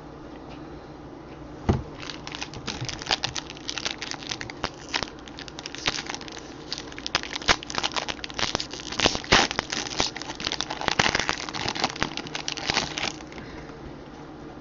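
Plastic-foil trading card pack wrapper crinkling and crackling as it is handled and opened. The crackles start about two seconds in and stop shortly before the end, loudest in the middle.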